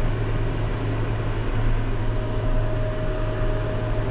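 Tractor engine running at a steady speed while pulling trailers, with a constant low drone and a thin steady whine above it.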